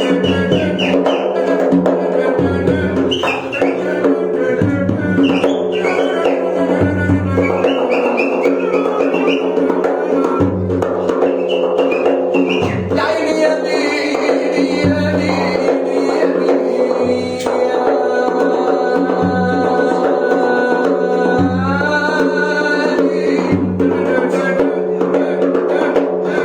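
Music: a steady drum beat with pulsing bass under a held drone, and a wavering, ornamented melody line on top.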